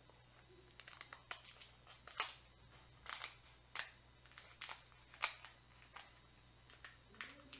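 Small scissors cutting through cooked seafood shell: an irregular series of sharp crunching snips, roughly two a second.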